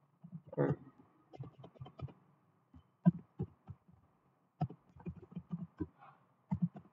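Computer keyboard typing: irregular key taps in short runs with brief pauses between them.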